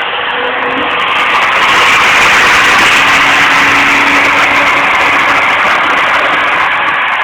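High-speed spindle motor of a cable-driven CNC milling machine, running with a steady, loud whirring hiss.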